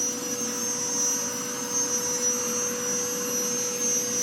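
Ecovacs X2 Combo robot vacuum running steadily while cleaning: a constant hum with a high whine over it.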